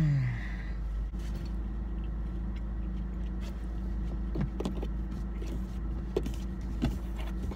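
Steady low hum of a car heard from inside the cabin, its engine running, with a few faint clicks and taps in the second half.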